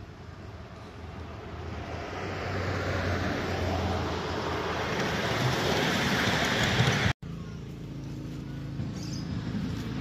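Ride-on miniature railway train passing close by, its wheels running on the rails over a low hum, growing louder as it approaches. It cuts off abruptly about seven seconds in, and a quieter steady noise follows.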